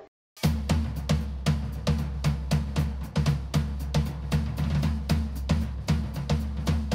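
Background music with a steady drum-kit beat and a bass line. It starts about half a second in, after a brief silence.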